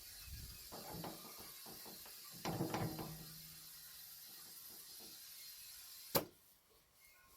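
Tools being handled and put away: a short clatter about two and a half seconds in and one sharp knock about six seconds in.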